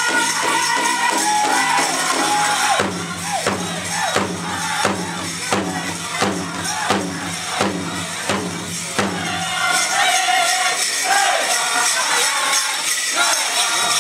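Powwow drum group singing a Prairie Chicken dance song over the big drum, with the dancers' bells jingling. From about three seconds in until about nine seconds, loud single drum strokes come roughly every half-second, and the voices slide down after each one; then steady singing picks up again.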